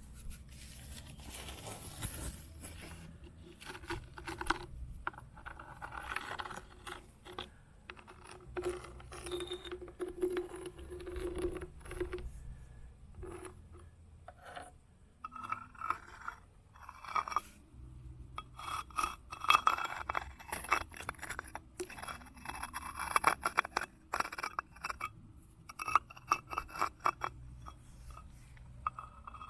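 Stones clattering and scraping against one another in an irregular stream of clicks and clinks, some with a brief ringing tone, busier and louder in the second half.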